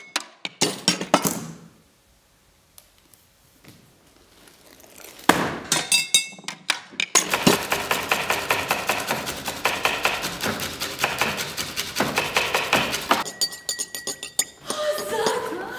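Clinks and knocks of glass and kitchenware, then, from about seven seconds in, a knife chopping rapidly on a cutting board, around five strokes a second, for several seconds.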